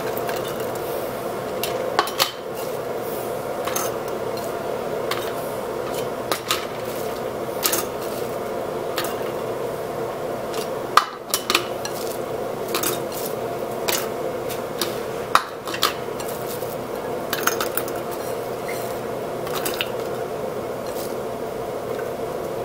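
Scattered light clinks and taps of a plastic canning funnel being set on and shifted between glass canning jars as chopped onion is dropped in by hand, over a steady background hum.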